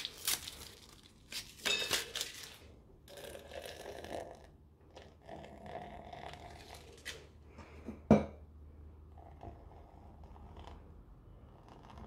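Foil blister packet crinkling as denture-cleaning tablets are pushed out and clink into a stainless steel mug, then water poured in gently onto the tablets. A single sharp knock about eight seconds in is the loudest sound.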